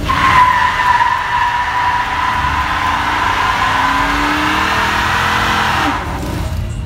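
Chevrolet Silverado pickup doing a burnout: rear tyre screeching steadily against the pavement, starting suddenly and cutting off about six seconds in. The engine note climbs underneath the screech in the second half.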